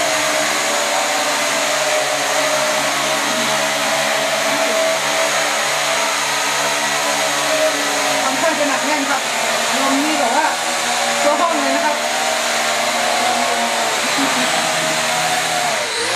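Large TY923 toy camera quadcopter's four motors and propellers whirring steadily as it hovers and manoeuvres, the pitch wavering with throttle. At the very end the motors begin to wind down.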